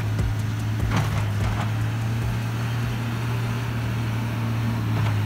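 Diesel engine of a snow-clearing wheel loader running with a steady low drone.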